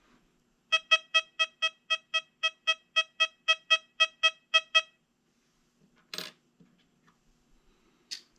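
XP Deus 2 metal detector sounding its target tone over a silver 1951 Roosevelt dime: a quick run of short beeps, all at one pitch, about four a second for some four seconds. Two sharp clicks follow later.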